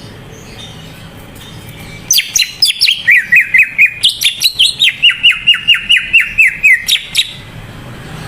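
A green leafbird (cucak ijo) singing vigorously: a fast run of loud, sharp, downward-sweeping notes, about five a second, starting about two seconds in and breaking off after about five seconds.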